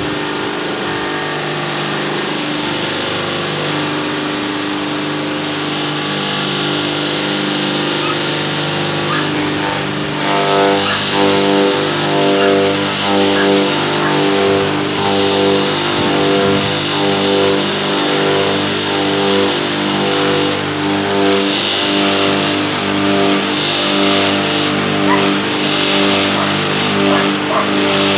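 Log rounding machine running: a steady motor drone whose pitch shifts in steps, over a hiss, getting a little louder and busier about ten seconds in.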